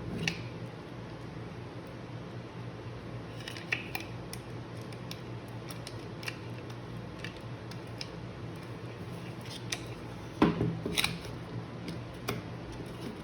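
Small metallic clicks and clinks of a loose saw chain being worked by hand around a mini chainsaw's bar and drive sprocket, with a denser, louder run of rattling clicks about ten seconds in.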